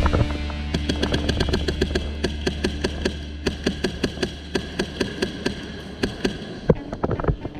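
Airsoft guns firing, a long run of sharp irregular shots several per second, over a steady low hum that stops about six seconds in.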